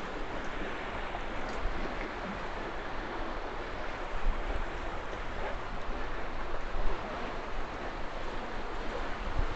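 Steady rushing of a river's flowing water, with a few light knocks.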